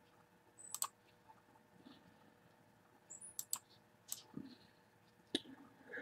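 A few faint, scattered clicks of a computer mouse.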